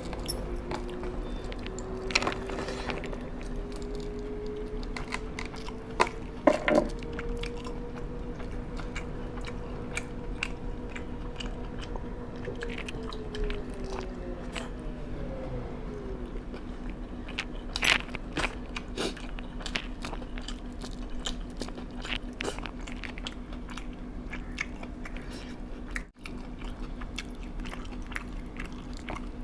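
A person chewing and biting into food close to the microphone, with irregular crunches and mouth clicks. A steady low hum runs underneath.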